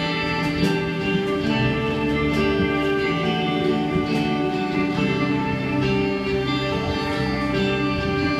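Acoustic guitar playing the instrumental intro of a slow song, sustained chords changing every second or two.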